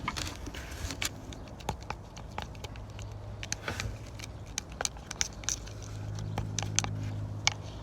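A stick stirring slime in a small container, giving irregular clicks and taps against the container. A low engine hum runs underneath, louder in two stretches, about three seconds in and again near the end.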